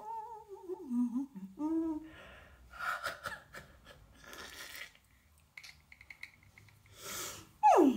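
A woman's wordless voice: a wavering hum that slides down in pitch over the first two seconds, then breathy gasps and laughter, with a falling vocal glide near the end.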